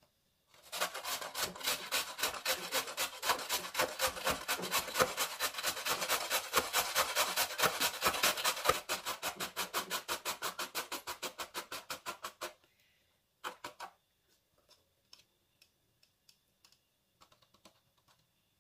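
Carrot being grated on a metal box grater: rapid, even rasping strokes for about twelve seconds, then a short pair of strokes and a few light taps and scrapes.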